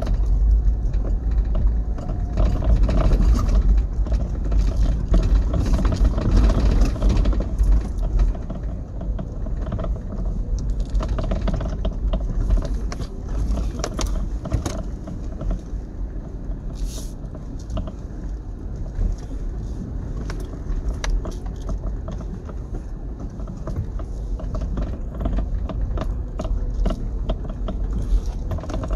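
Inside the cab of a 2005 Toyota Land Cruiser Prado crawling along a rutted dirt track: a steady low rumble of engine and tyres, with frequent knocks and rattles as the vehicle rolls over bumps. It is louder for the first several seconds, then eases.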